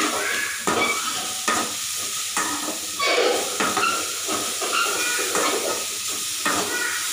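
Shredded carrot, cabbage and beans sizzling in hot oil in a metal kadai while a slotted steel spatula scrapes and tosses them, a stroke about once a second over the steady frying hiss.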